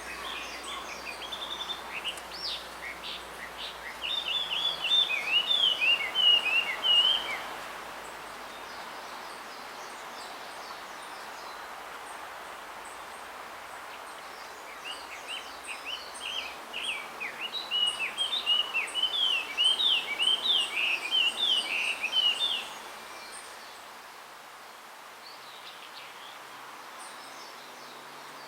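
Male blue rock thrush singing: two bursts of rapid, varied warbling notes, each several seconds long, with a pause of about eight seconds between them. It is the male's song to attract a female.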